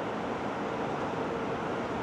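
Steady airport background noise: an even rumble and hiss with a faint steady hum, and no distinct events.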